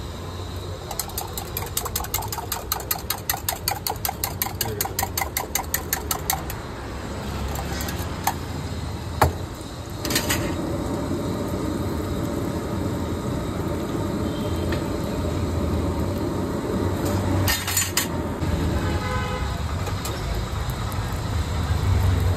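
A metal utensil clicks rapidly against a bowl or pan, about five strokes a second for some five seconds, as eggs are beaten for anda lahori. From about ten seconds in, a steady frying sizzle follows, with road traffic humming underneath.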